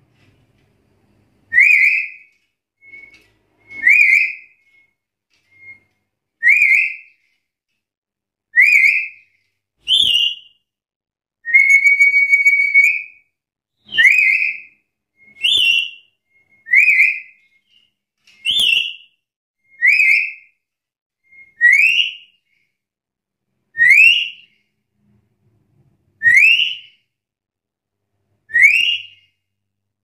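Black-capped lory giving loud, high whistled calls in full voice, the kind of challenge calls used to goad a rival lory into answering. Each call is a short rising note, repeated every one to two seconds, with one longer steady note about midway.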